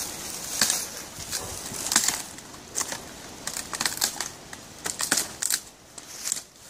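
Slatted wooden crate being handled and opened by hand: irregular scraping, knocking and rustling in short bursts, one or two a second.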